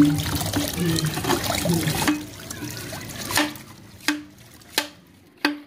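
Water gushing and splashing out around a PVC fitting held against the open end of an HDPE water main. About two seconds in, the gush eases into short rhythmic spurts, about three every two seconds.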